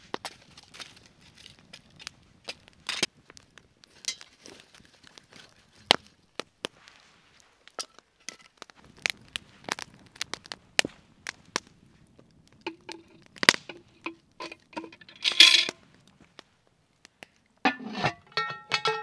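Wood campfire crackling with sharp pops. Logs knock as they are laid on it, and toward the end comes a run of short ringing metal clinks as the cast-iron Dutch oven and its lid are set on the fire.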